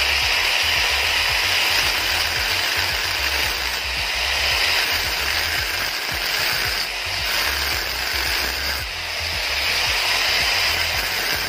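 DeWalt angle grinder with an abrasive cut-off disc cutting through a steel motorcycle frame tube, a steady loud grinding hiss. Background music with a low beat plays underneath.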